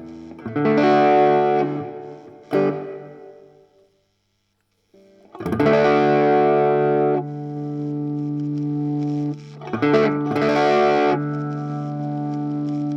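Electric guitar played through a Bugera V5 tube amp in 1-watt mode, with an overdrive pedal switched on, giving a crunchy overdriven tone. A few short strummed chords, a brief pause about four seconds in, then chords struck and left to ring out.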